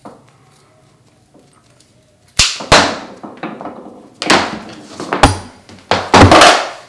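Hand tools and air hose fittings being handled: after a quiet stretch, several sharp knocks and clattering clunks, the loudest near the end.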